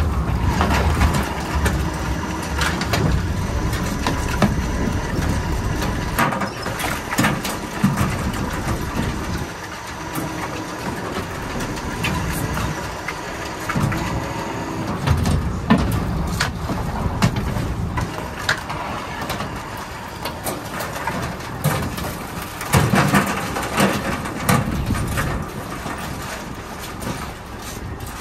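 Wire crab pots clanking and rattling as they are hauled aboard, shaken out and handled on a crab work boat, with scattered sharp knocks, over the boat's engine running.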